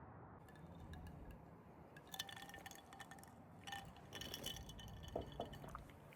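Faint, light clinks of small hard objects, a handful of them in the second half, each leaving a short ringing tone over a low steady hum.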